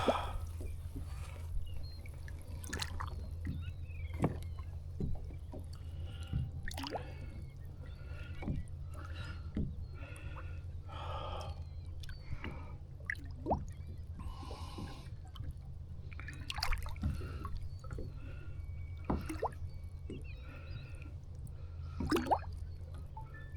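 Water sloshing, gurgling and dripping against a kayak as a red drum is held in the water for release, with scattered small knocks and a steady low hum.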